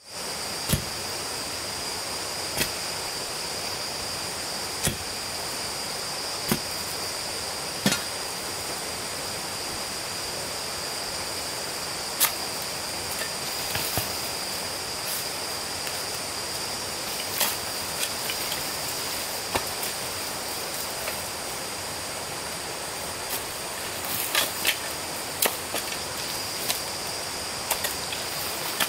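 Steady high drone of insects, with sharp knocks at irregular intervals, a dozen or more, several coming close together a little before the end.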